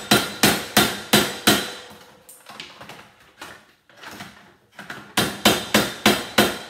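Hammer blows on a satellite dish's LNB feed arm clamped in a bench vise, knocking the housing open. Sharp strikes come in two quick runs of about four a second, with a pause of about three seconds between them.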